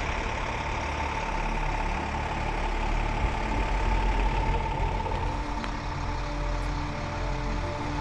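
Diesel engine of a fire truck idling steadily: a continuous low rumble with a thin, steady hum above it.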